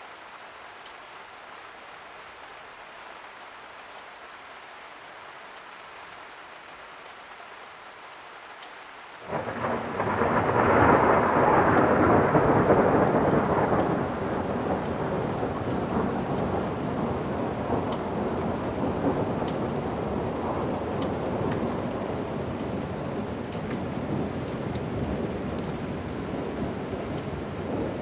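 Steady rain falling, then about nine seconds in a thunderclap breaks in suddenly. It is loudest for the next few seconds, then keeps rumbling somewhat more quietly under the rain.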